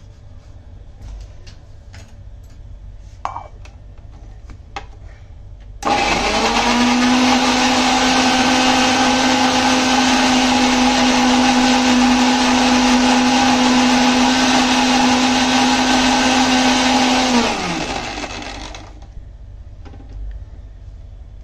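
Kitchen mixer grinder (mixie) grinding green chillies and garlic with a little water into a paste: a few clicks of the jar being handled, then the motor starts suddenly about six seconds in. It runs loud at a steady pitch for about eleven seconds, then winds down with a falling pitch.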